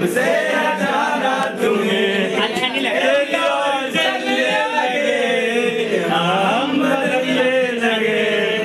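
Several young men's voices singing and chanting loudly together without instruments, overlapping and continuous.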